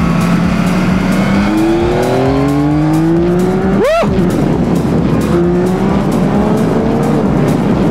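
Several sport motorcycle engines running hard at once. Their pitch climbs steadily under acceleration, and about four seconds in there is a quick rev blip that rises and falls.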